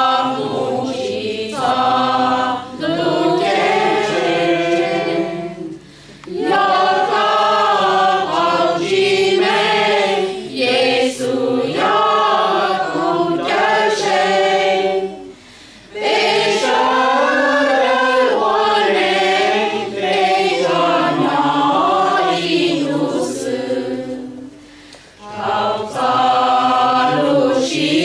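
Mixed choir of men and women singing a Hmong Christian hymn in long sustained phrases, with a short breath pause between phrases every nine seconds or so.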